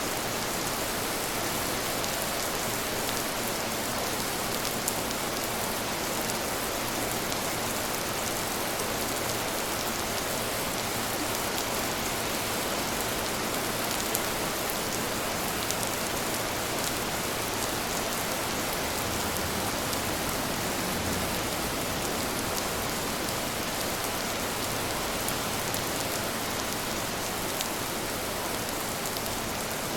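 Steady rain falling on a surface: an even, unbroken hiss with scattered single drops ticking through it.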